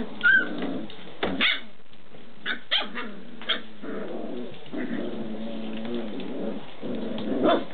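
Six-week-old standard schnauzer puppies play-fighting: several short, sharp yips and barks in the first few seconds, then longer, lower growls, with another bark near the end.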